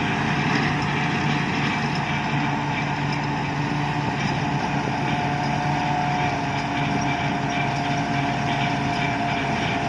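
Combine harvester's engine running steadily, a continuous mechanical hum with a thin steady whine over it.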